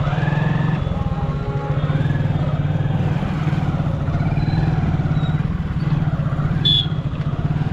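Motorcycle engine running steadily with a fast, even pulsing. Near the end there is one short sharp sound.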